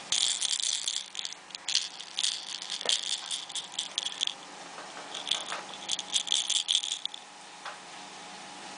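A baby's rattle toy being shaken, in two spells of rattling that stop about seven seconds in.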